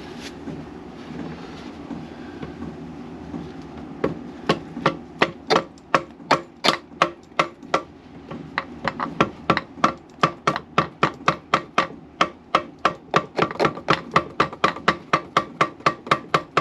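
Repeated hammer blows, about three a second, beginning about four seconds in. A low steady hum comes before them.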